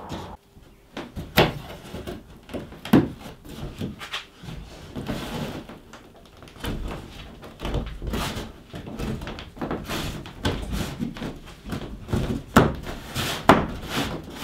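Scattered knocks, taps and scrapes of thin cedar strips being handled and pressed into a cut-out in a wooden canoe hull, with a few sharper knocks standing out, two of them near the end.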